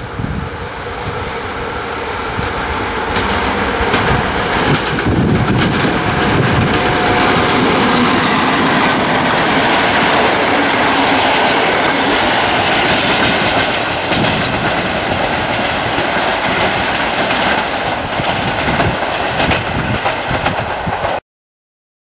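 Passenger train of double-deck coaches hauled by a CFR class 41 electric locomotive, pulling out of the station and passing. Wheel and rail noise builds over the first several seconds, runs steadily, then cuts off suddenly near the end.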